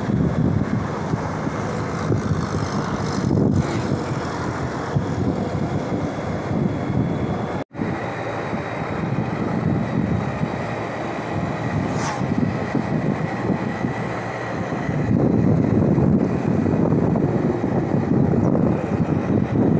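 Wind rushing over the microphone and road noise from a moving motorbike. The sound drops out for a moment about eight seconds in.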